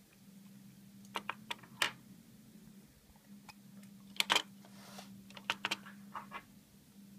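Sharp irregular clicks and taps of small hard plastic parts being handled: the Seek Thermal XR camera and its clear plastic carry case, with a quick cluster of clicks about four seconds in. A steady low hum runs underneath.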